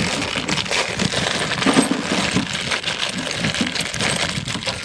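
Clear plastic bag crinkling and rustling as it is torn open by hand, with light metallic clinks of small parts inside.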